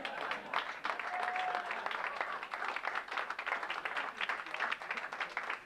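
A small group of people applauding, many hands clapping in a dense, irregular patter.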